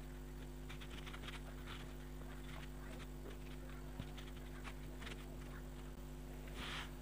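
Faint soft pats of a cushion-compact puff being dabbed onto the face, over a steady electrical hum. Near the end comes a louder, muffled animal cry.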